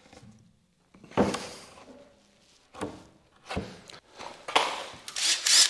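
About five separate thunks and knocks on wood from bench assembly, spaced irregularly, the last couple louder and followed by a brief high whine.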